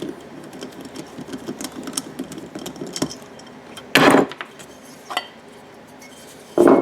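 Hand tools and small metal parts clicking against a 212cc generator engine as its PCV valve is taken out. A quick run of small ticks comes first, then two short, louder clatters, about four seconds in and again near the end.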